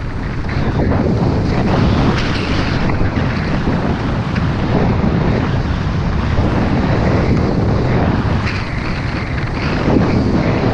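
Rushing wind buffeting the microphone as a skier runs fast downhill, with the skis hissing and scraping over wind-packed snow. The noise swells and eases a little but never stops.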